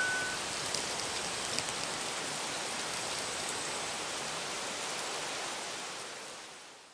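Steady hiss of rain with a few faint drop ticks, fading out near the end.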